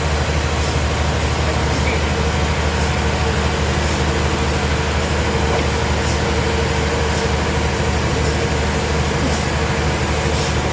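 Heavy sawmill machinery running steadily: a constant low drone with a steady higher hum and a few faint ticks.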